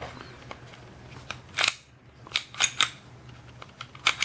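Ruger P95 pistol's steel slide sliding and clicking on its frame as it is worked into place during reassembly: several sharp metallic clicks, the first with a short scrape.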